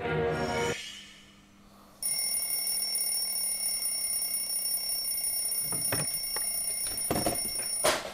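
An alarm clock going off with a steady, high-pitched electronic ring, with a few soft thumps before the ring cuts off abruptly near the end. The first second holds the tail of the music, which then fades.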